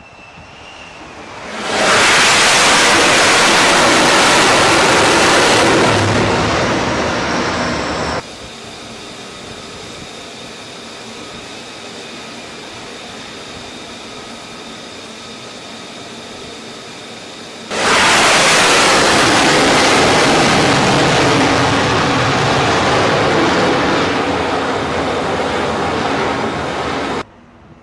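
F-35C fighter jet engine roaring loudly twice as the jets land on the carrier deck. Each roar swells up within a second or two and cuts off abruptly several seconds later, with a quieter steady jet whine between them.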